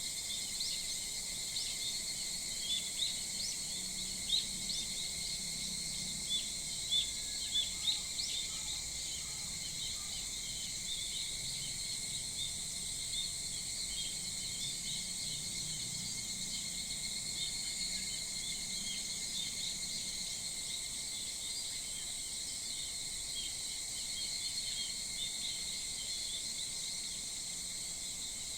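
Early-morning summer chorus of insects keeping up a steady shrill drone, with many short, quick bird chirps over it that are thickest and loudest in the first eight seconds and then thin out.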